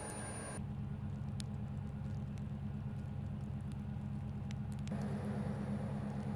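A steady low rumble like a vehicle engine running. The background above it changes abruptly about half a second in and again near the end.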